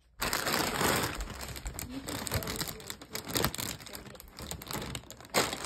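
Clear plastic cereal bag crinkling and rustling as it is handled.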